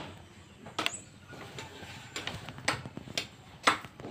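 Small plastic Rubik's cube pieces clicking and skittering on a concrete floor as kittens bat at them: several irregular sharp taps, the loudest near the end.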